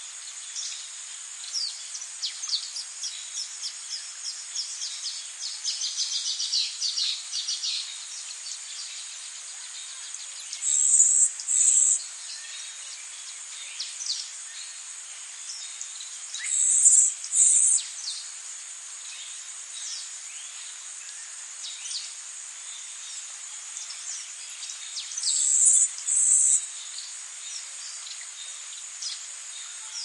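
Birds chirping in quick runs of short, high calls over a steady high-pitched insect hum. Three times, a louder, high buzzing burst of about a second and a half, in two parts, stands out above the rest.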